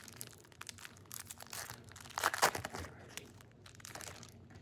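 The wrapper of a 2025 Bowman baseball card pack being torn open and crinkled, an irregular run of crackles that is loudest about two seconds in.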